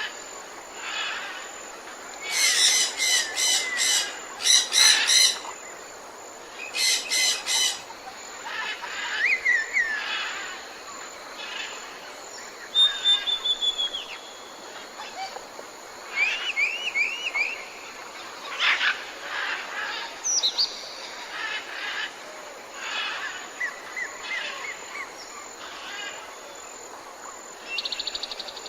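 Several different birds calling and singing, a mix of chirps, whistled slurs and trills. The loudest are fast, rapid-note chattering phrases between about two and eight seconds in.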